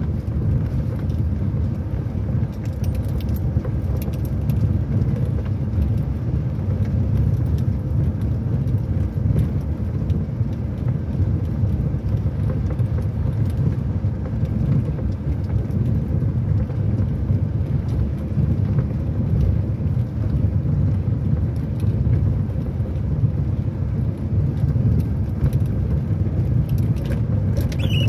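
Inside a car driving slowly over a rough, muddy dirt road: a steady low rumble of engine and tyres, with occasional faint light rattles.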